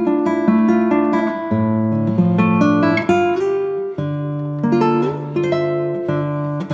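Background music on acoustic guitar: picked notes and chords that change every second or so.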